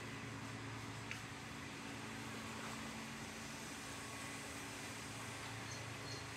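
A steady low hum under a constant hiss, with a faint click about a second in.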